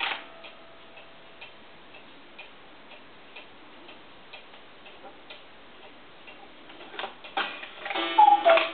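Hunter cuckoo clock's pendulum movement ticking evenly, about two ticks a second. Near the end the clock's mechanism clatters loudly, with a brief burst of ringing tones.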